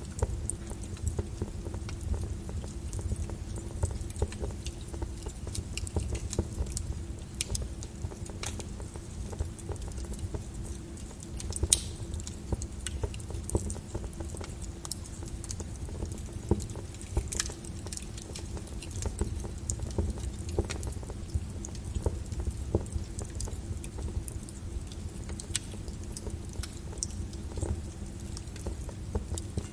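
Rain pattering over a crackling wood fire: a steady low rumble with scattered sharp crackles and taps throughout, one sharper crack about twelve seconds in.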